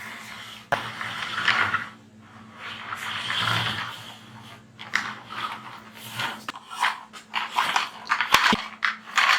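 A plastic toy truck being handled and pushed on a surface: irregular scraping and rubbing, quickening in the second half. There is a click about a second in and a sharp knock near the end.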